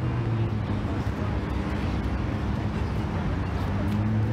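Steady low engine hum, one unchanging pitch with overtones, over the wash of street traffic.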